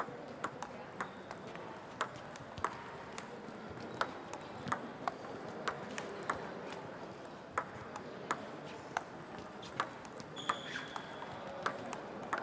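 Table tennis ball knocking back and forth in a rally: sharp, irregular clicks of the celluloid-type ball on rubber bats and the table top, about one or two a second, over the steady background noise of a sports hall.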